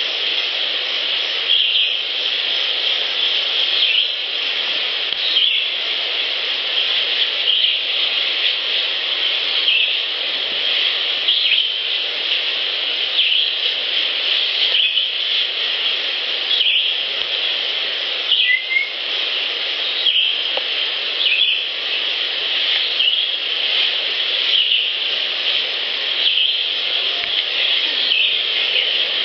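Steady, high-pitched outdoor wildlife chorus with short bird calls recurring every second or two.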